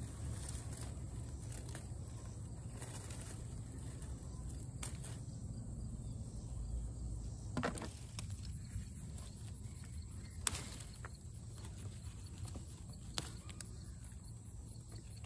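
Rustling of bean vines and leaves with a few sharp snaps, as pole bean pods are picked by hand, over a low steady rumble.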